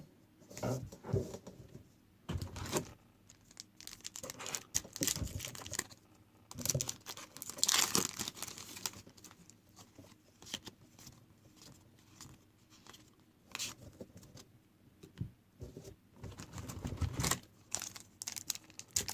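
Foil trading-card pack wrappers being torn open and crinkled, with cards handled in between, in irregular rustles. The longest and loudest rip comes about eight seconds in.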